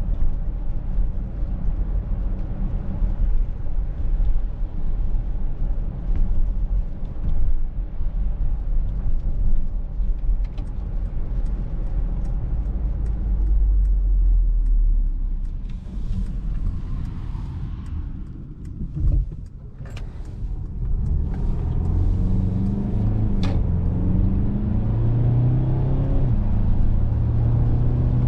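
Mercedes-Benz GLC 300de 4Matic being driven: a steady low road and tyre rumble that eases off briefly past the middle. Then the engine note rises as the car pulls away again.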